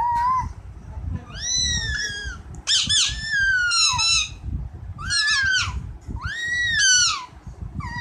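A pet ring-necked parakeet vocalizing: about five drawn-out, squeaky calls in a row, each rising and then falling in pitch.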